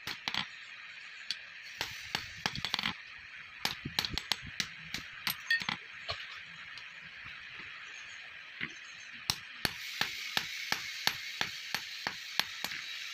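Hand hammer striking red-hot steel on an anvil: sharp metallic blows, first in irregular clusters, then an even run of about three strikes a second near the end, over a steady hiss.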